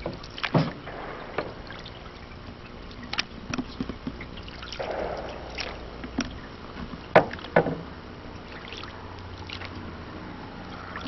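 Canoe being paddled: water swishing with the paddle strokes, and a few sharp knocks of paddles against the hull, the loudest a pair close together about seven seconds in.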